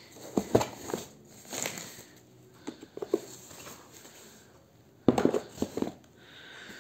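Thin plastic packing wrap crinkling and rustling in short, irregular bursts as a keyboard is pulled out of it, loudest near the start and again about five seconds in.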